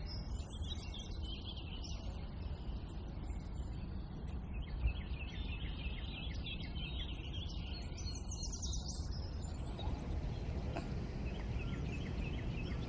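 Small birds chirping and twittering in quick repeated notes over a steady low background rumble.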